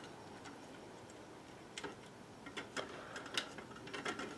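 Faint, scattered clicks of a small metal shutter staple being worked by hand into pilot holes in a wooden shutter's tilt rod and slat, starting about two seconds in.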